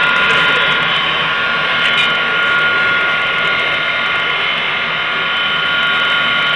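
Double-walled stove burning under forced draught, air blown in through a duct on its side: a steady rushing roar with a steady high whine over it.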